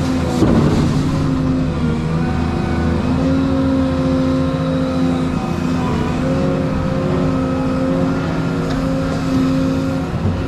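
Volvo 235EL excavator's diesel engine running steadily under working load, heard from the cab, its pitch stepping up and down a little as the machine swings and moves.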